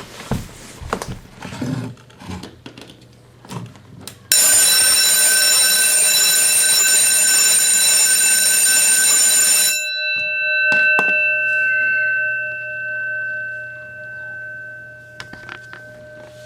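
Very old electric school bell, wired to plug into a wall outlet, ringing loud and continuous for about five seconds, then cut off, its gong ringing on and slowly fading. A few clicks and knocks of handling come before the ringing and just after it stops.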